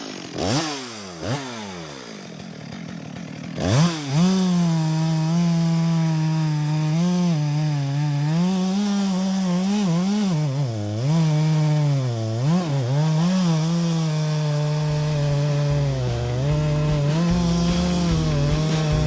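Two-stroke chainsaw blipped twice, each rev falling away, then opened up to full throttle about four seconds in and held there cutting wood. Its pitch sags briefly again and again as the chain loads up in the cut.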